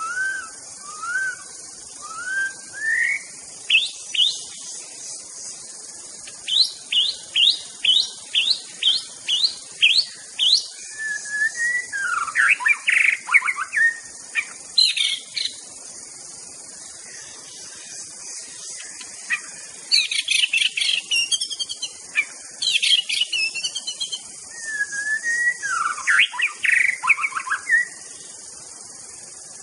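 White-rumped shama singing in separate varied phrases with pauses between them: rising whistles at the start, then a run of about eight quick upswept notes, then scratchy warbled phrases. A steady high insect buzz runs underneath.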